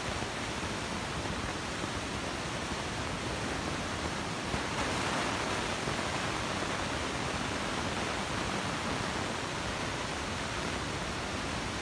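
Steady, even rushing noise of a subway station, with no distinct events.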